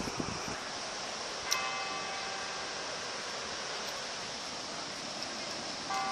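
Tower bell striking twice, about a second and a half in and again near the end, each stroke ringing on and fading. There is a steady hiss underneath.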